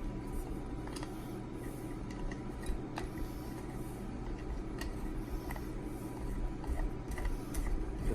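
Scattered light clicks and taps of an RC truck wheel and its nut being fitted onto the hex hub by hand, over a steady low hum.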